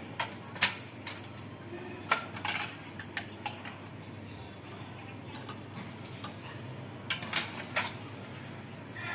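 Sharp metallic clicks and clacks from a manual badminton stringing machine and its tools being handled: a few near the start, a cluster a couple of seconds in, and three more near the end.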